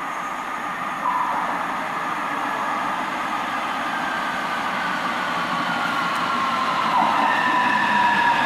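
An Öresundståg electric train running into an underground tunnel station, growing louder as it comes in. It carries a high whine of several tones that slowly fall in pitch as it slows.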